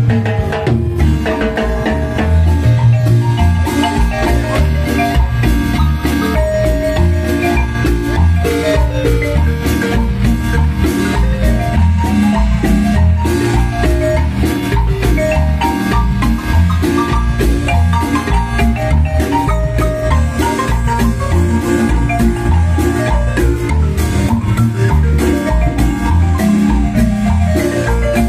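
Guatemalan concert marimba ensemble: several players with mallets striking the wooden keys of two large marimbas in a steady, lively piece, with a pulsing bass line under the rapid melody notes.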